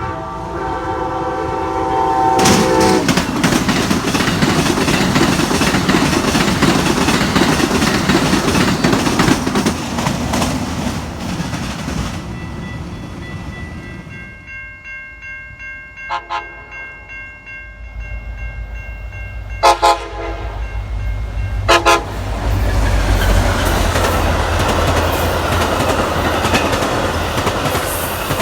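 A K5LA five-chime locomotive air horn sounding a chord, then a train passing close with loud rumble and wheel clatter. Later a locomotive's engine rumbles and two short horn blasts come about two seconds apart, before the cars run past again.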